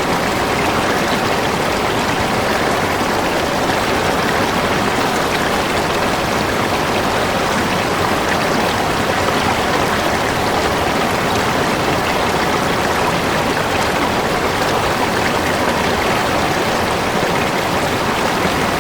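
Water of a spring-fed valley stream flowing, a steady, even rush of running water.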